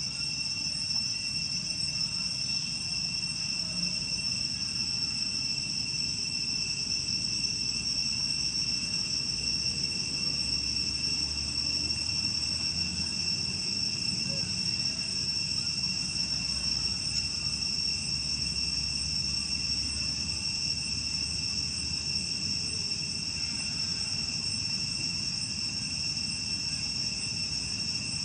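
A steady, high-pitched insect chorus: several unbroken shrill tones run on without a pause, over a low rumble.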